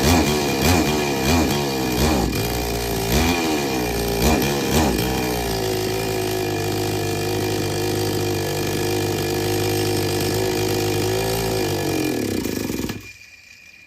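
Petrol two-stroke chainsaw engine revved in a series of quick throttle blips, then running steadily before stopping near the end. The saw is one that won't take load, with its carburetor H and L screws out of adjustment.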